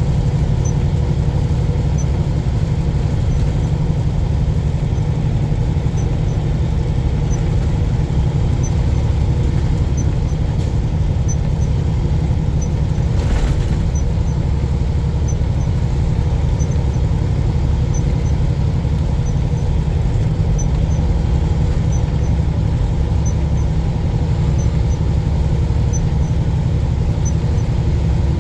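Truck driving down the highway: a steady low engine and road drone, with a brief rise in rushing hiss about halfway through.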